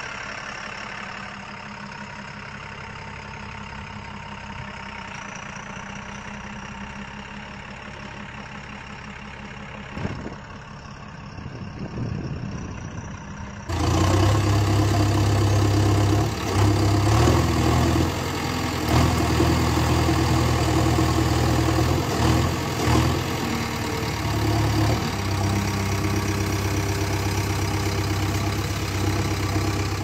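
Heavy vehicle engine idling steadily, an engine sound effect laid over toy model vehicles; about fourteen seconds in it cuts abruptly to a louder engine running.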